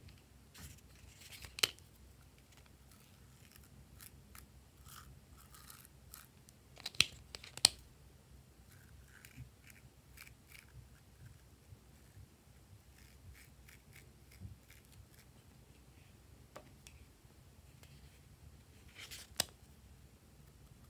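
Small plastic squeeze bottles clicking and tapping as coloured paint is dotted and drawn onto white slime, with faint soft crackles between. There are sharp clicks about a second and a half in, two close together around seven seconds, and one near the end.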